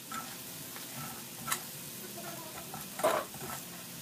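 Tofu cubes frying in oil in an aluminium wok, a faint steady sizzle, while a metal ladle scoops them out, clinking and scraping against the wok twice, about one and a half and three seconds in.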